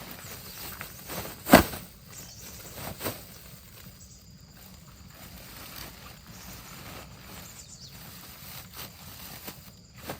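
Faint scattered handling noises, with one sharp knock about one and a half seconds in and a smaller one about three seconds in.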